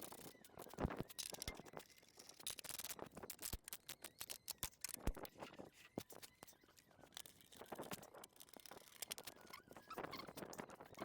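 Faint, irregular clicks and taps of hand tools, clips and fixings, with light scraping, as car body panels are fitted.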